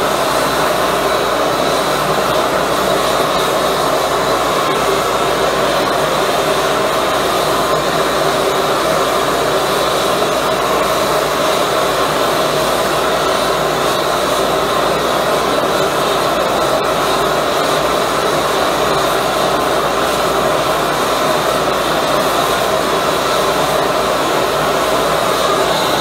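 High-velocity, compressed-air-assisted propane burner running at a steady full flame: a loud, even rush of air and burning gas.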